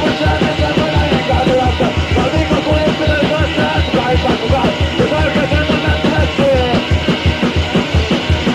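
Early-1980s Finnish punk rock from a cassette compilation: a fast, steady drum beat driving loud band music, with a wavering melody line on top.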